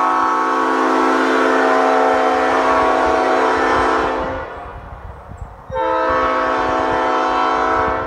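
3D-printed PETG replica of a Nathan Airchime P5A five-chime train horn, blown on compressed air at 120 psi. The chord is held until about four seconds in and trails off. It is then sounded again for a blast of about two and a half seconds, starting near six seconds.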